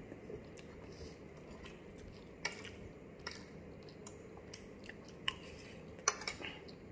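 Spoon and fork clicking and scraping on a plate during a meal, a few scattered clinks, the loudest about six seconds in, with quiet chewing in between.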